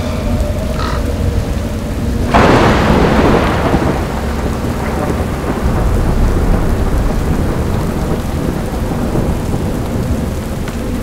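Thunderstorm sound effect: a sudden loud thunderclap about two seconds in that rolls away over the next couple of seconds, over steady rain and a low rumble.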